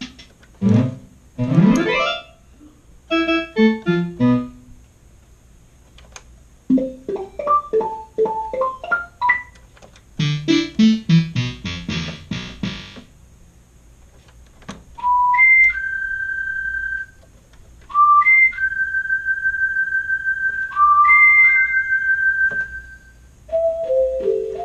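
Yamaha PSS-170 portable keyboard played through a guitar amplifier: quick runs of notes in the first half, then a melody of single notes, each held up to about two seconds, one pitch at a time.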